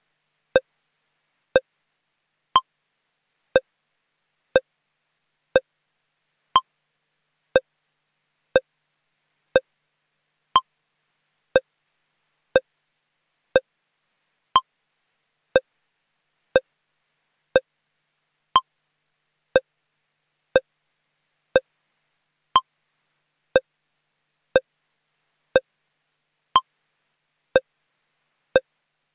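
Short electronic pips, one a second, with every fourth pip higher in pitch, repeating steadily: a broadcast feed's holding signal.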